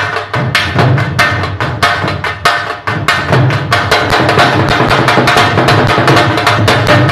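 Dhol, the double-headed barrel drum, played solo in a fast, dense rhythm of stick strokes, with deep bass strokes under rapid sharp ones. About three seconds in the strokes close up into a steadier, busier roll.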